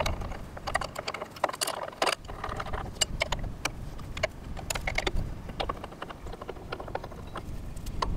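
Steel wrenches clinking and scraping on the lock nut and adjuster bolt inside a mini excavator's steel track frame, in irregular small metallic clicks, as the track-tension bolt is loosened and backed out to slacken the track.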